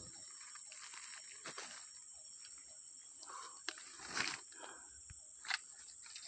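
Steady high-pitched insect drone of tropical forest, with a few crunching rustles of footsteps through leaf litter and undergrowth, loudest about four and five and a half seconds in.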